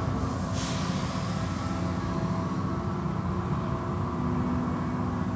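Automatic tunnel car wash running: a steady mechanical hum from its machinery as the cloth curtains and brushes work over an SUV. About half a second in, a spray of water starts hissing suddenly and fades over the next two seconds.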